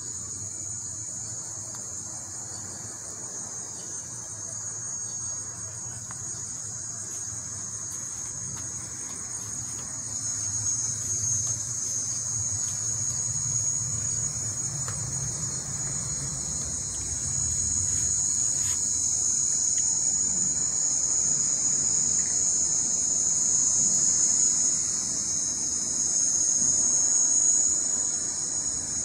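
Steady, high-pitched chorus of evening insects, growing louder toward the end, with a low rumble swelling and fading around the middle.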